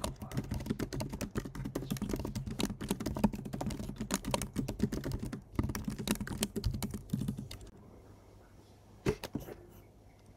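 Typing on a computer keyboard: a quick, steady run of key clicks that stops about three-quarters of the way through, followed by a couple of separate keystrokes near the end.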